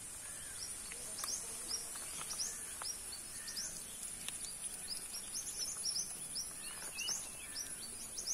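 Steady high-pitched insect drone with many short rising chirps scattered through it, and a few faint clicks.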